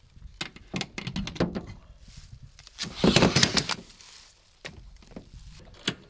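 Someone climbing a rooftop tent's ladder and handling the tent on the roof: a run of knocks, clanks and clicks from feet and hands on the ladder, with a louder scraping rustle about three seconds in.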